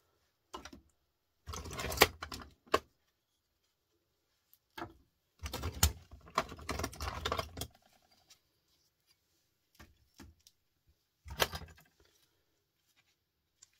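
Scrap small electric motors and transformers clattering and clinking against each other as they are picked through and handled on a heaped pile, in about six short bursts separated by pauses.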